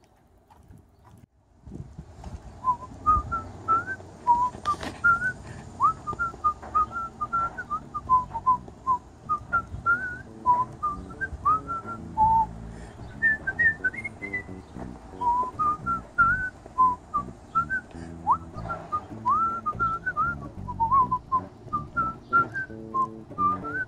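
A man whistling a jaunty melody in short, quick notes, starting about a second and a half in. The tune was pitched a tone higher than he meant, so the high notes give him some trouble.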